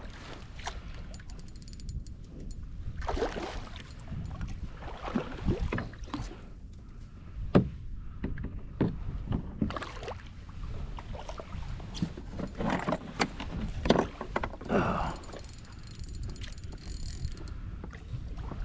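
Water splashing and sharp knocks against a kayak, in short irregular bouts over a steady rumble of wind on the microphone.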